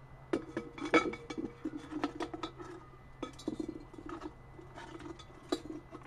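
Small iridescent glass pieces clinking and rattling as they are dropped into a glass dish: a quick, irregular run of sharp, ringing clinks, the loudest about a second in.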